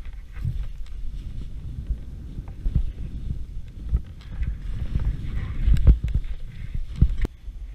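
Wind rumbling on the camera's microphone during a downhill ski run, with uneven sharp knocks and scrapes as the skis hit chopped-up snow, the strongest two knocks near the end.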